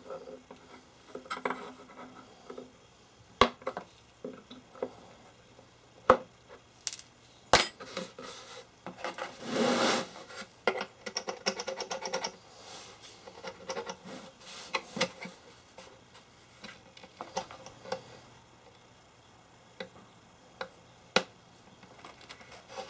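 Hand tools working small nails out of an old wooden tool chest: scattered sharp metallic clicks and taps, a few of them loud, with a short scraping rasp about ten seconds in.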